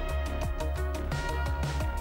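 Electronic background music with a steady beat and a deep bass line.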